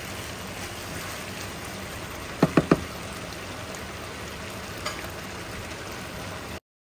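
Beef and broccoli stir-fry sizzling steadily in a nonstick frying pan, with three quick sharp knocks about two and a half seconds in and a fainter one about two seconds later. The sound cuts off suddenly near the end.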